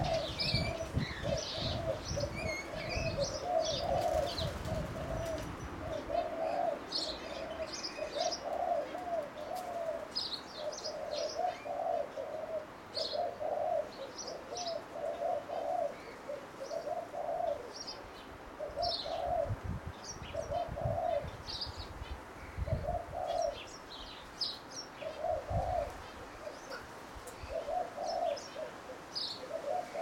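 A dove cooing over and over in a steady low phrase roughly once a second, with small birds chirping high above it. A low rumble runs under the first few seconds and comes back briefly later.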